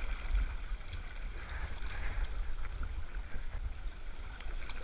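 Fast, shallow mountain river rushing and swirling around the legs of a wading angler, with a steady low rumble underneath.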